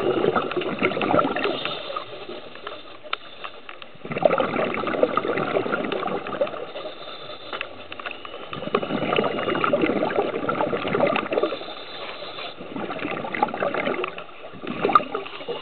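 Scuba regulator exhaust bubbles heard underwater: a rush of bubbling with each exhaled breath, coming in bursts every three to four seconds with quieter gaps between breaths.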